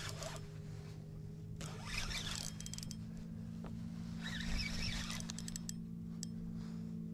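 Spinning reel cranked in two short scratchy bursts, about two seconds and four and a half seconds in, over a steady low hum from an electric trolling motor.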